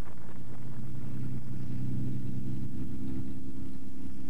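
Rolls-Royce Merlin piston engines of a de Havilland Mosquito running steadily, a deep even drone.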